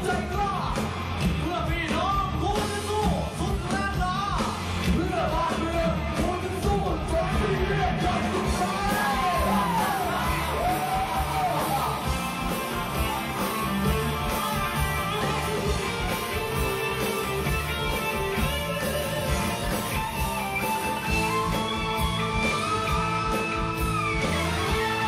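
Live pop-rock music played over a stage PA: singers with a full band.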